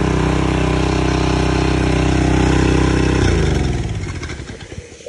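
An engine runs steadily. About three seconds in it is shut off and winds down to a stop.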